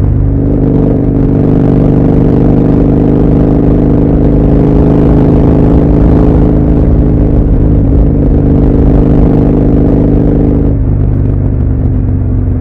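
Husqvarna Nuda 900R's parallel-twin engine running at a steady, even note while riding at constant speed. The note softens near the end as the throttle eases.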